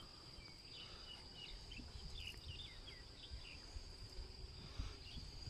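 Faint shoreline ambience: a steady high-pitched insect drone, a run of short chirping calls over the first few seconds, and low wind rumble on the microphone.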